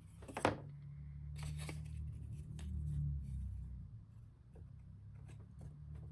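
Light clicks and taps of small wooden model-kit pieces being handled and set in place, over a low steady hum.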